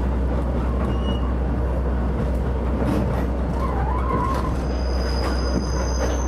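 Oigawa Railway Ikawa Line train running on the rails, a steady rumble with occasional clicks. About four and a half seconds in, a high steady wheel squeal sets in.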